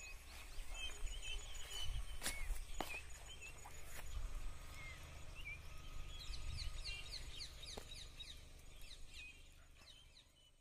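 Outdoor farm ambience: small birds chirping with many short calls, over a low rumble, with a few sharp clicks. It fades away near the end.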